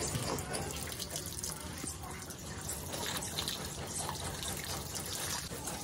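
Water running steadily from a garden hose and splashing.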